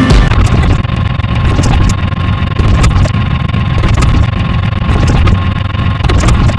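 An engine running with a steady low rumble and scattered light ticks.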